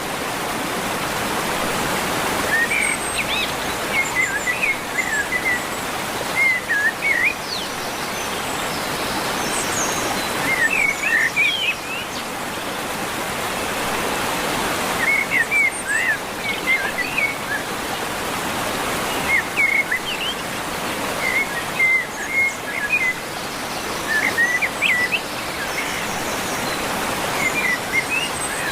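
Steady rush of a waterfall, with a songbird singing short chirpy phrases over it every few seconds.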